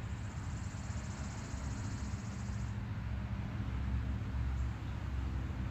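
Outdoor garden ambience: a steady low rumble with a high, fine buzzing that stops about three seconds in.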